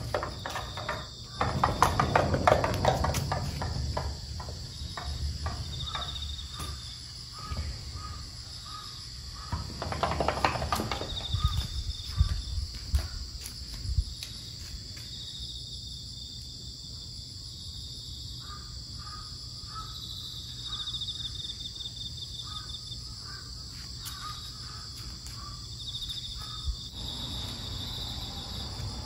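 Insects chirring steadily in high pulsing trills, with a bird calling in short repeated notes now and then. A few knocks and rustles come near the start and again about ten seconds in.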